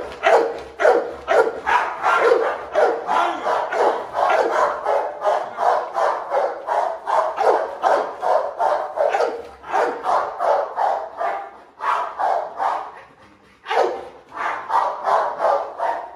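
XL American bully pit bull barking rapidly and repeatedly, about three barks a second, with a short pause about three-quarters of the way through before the barking resumes.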